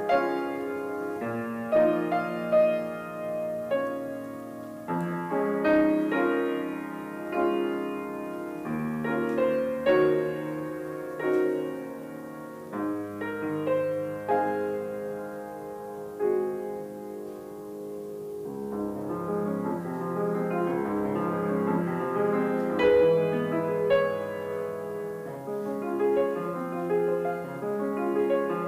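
Grand piano playing a slow, gentle solo piece: sustained chords with single notes ringing and fading over them.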